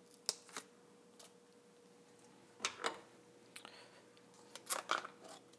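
Scattered faint clicks and taps of a small plastic ricotta tub being handled over a glass bowl, a couple a little under three seconds in and a cluster near the end, over a faint steady hum.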